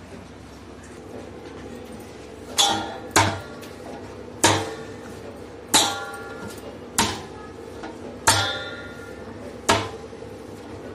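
Stiff semolina dough being pounded by hand in a steel bowl: seven thumps a little over a second apart, starting a couple of seconds in, each leaving the bowl ringing briefly.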